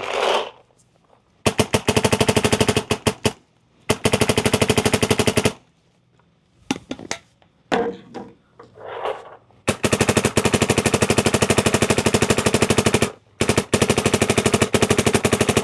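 A Dye MXR electronic paintball marker on compressed air firing in ramping mode: rapid strings of shots, each string one to three and a half seconds long, with short pauses between them.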